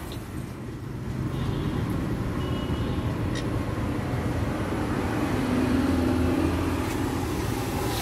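Steady low rumble of road traffic, with a faint, even drone rising out of it about five seconds in.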